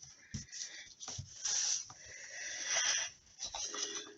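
Paper and card being handled on a worktable: rustling and sliding scrapes with a few small knocks.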